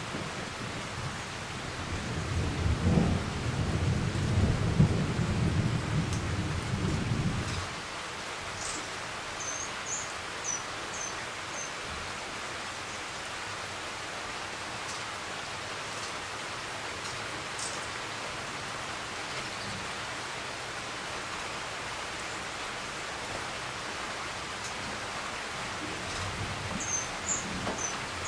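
Thunder rumbling for the first several seconds, the loudest sound, over steady rain. A rufous-tailed hummingbird gives short, high chirps in a quick series about ten seconds in, and again near the end.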